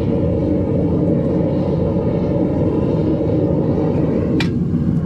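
Propane-fired melting furnace burner roaring steadily at full blast while copper melts. A single sharp click about four and a half seconds in.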